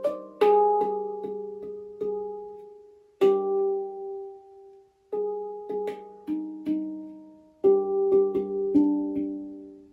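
MAG Instruments handpan tuned to the AkeBono scale, played with the fingers: short phrases of struck notes that ring and fade away, with brief pauses between phrases.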